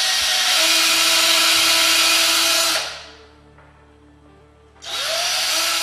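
Power drill running in two bursts: a steady run of nearly three seconds, then a second run spinning up near the end.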